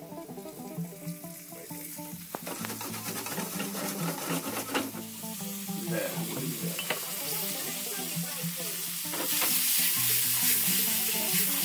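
Floured eel pieces and garlic sizzling in hot oil in a frying pan on a gas hob, with the clicks and scrapes of being stirred. The sizzle grows louder about two seconds in and again near the end, as more goes into the pan.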